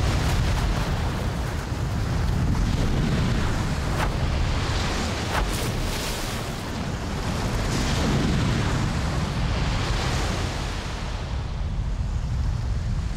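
Glacier front calving: huge blocks of ice collapsing into the sea with a heavy, continuous rumble and crashing water. There are two short sharp cracks about four and five seconds in.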